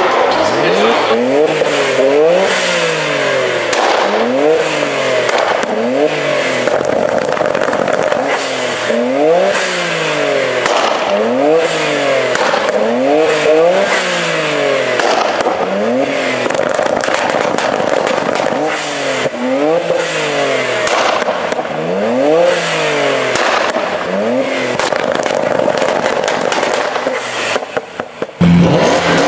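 R33 Nissan Skyline's straight-six engine revved repeatedly while standing still, each blip rising and falling in pitch, about once every second or two, heard loud from the exhaust.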